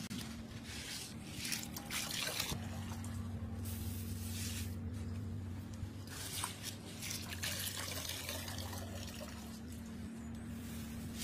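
Water dripping and trickling in irregular spells as a steel strainer lifts soaked chana dal out of a metal tub of water and the water drains back through the mesh.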